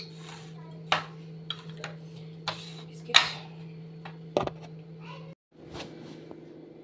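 Crockery knocking and clinking on a table as a ceramic mug and tray are handled: about five sharp knocks, the loudest about three seconds in. Under it runs a steady low hum, which cuts out briefly about five and a half seconds in.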